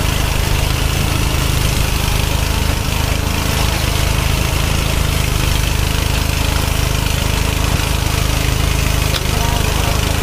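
Small engine running steadily at an even speed, with no change in pace.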